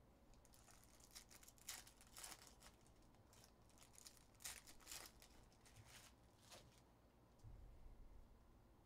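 Faint crinkling and tearing of a trading-card pack's foil wrapper being opened by hand, in short scattered crackles, with light handling of cards near the end.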